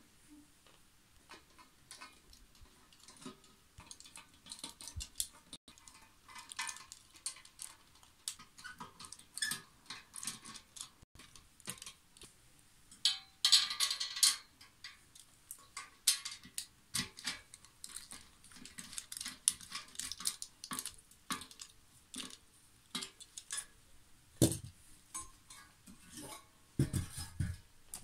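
Small metal clicks, clinks and rattles as screws are driven by hand with a multi-bit screwdriver into the joints of a thin white metal-tube frame, with a louder clatter about halfway. Near the end there are two heavier thumps as the frame is handled.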